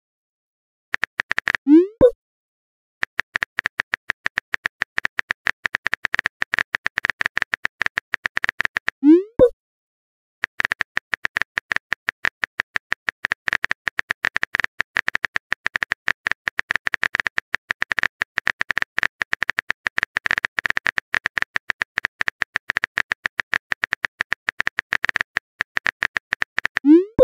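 Phone keyboard typing sound effect: fast runs of key clicks, broken three times by a short rising 'bloop' of a message being sent, about two seconds in, about nine seconds in and near the end.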